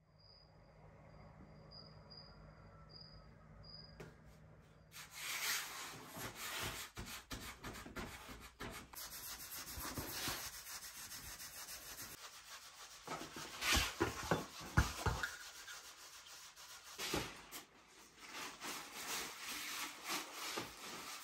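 Hands rubbing, pressing and patting bread dough on a floured wooden board, with plastic sheeting rustling and swishing as it is pulled over rows of dough. For the first few seconds there is only a faint low hum with a softly repeating high chirp.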